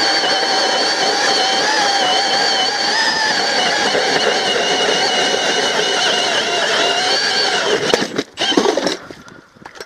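Milwaukee Fuel cordless drill driving an ice auger through lake ice: a steady motor whine whose pitch wavers under the cutting load. It stops about eight seconds in, followed by a couple of knocks.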